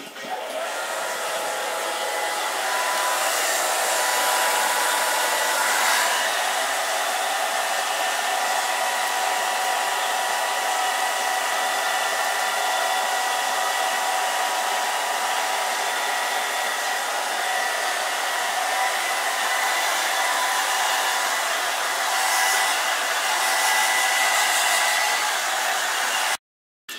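Handheld hair dryer blowing steadily, a rushing of air with a steady motor whine; it cuts off suddenly near the end.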